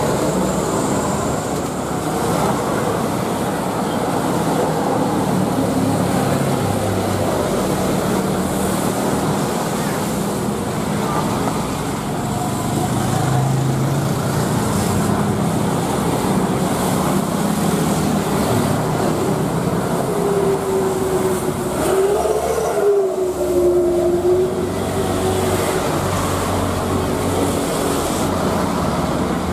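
Boeing 737 airliners' jet engines running on a wet runway, a steady rush of noise mixed with tyre spray: first a 737-900 on its landing roll, then a 737-800 rolling past. A whine rises and then falls briefly about two-thirds of the way through.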